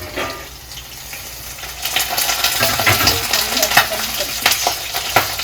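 Chilli chicken pieces deep-frying in hot oil, sizzling and crackling, with the crackle getting louder about two seconds in.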